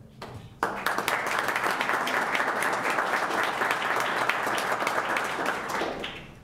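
Audience applause: many people clapping, starting abruptly about half a second in and fading out near the end.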